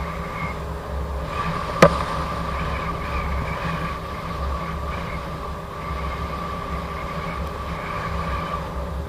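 Gotway MSP electric unicycle riding at speed: the steady whine of its hub motor over a low rumble, with one sharp click about two seconds in.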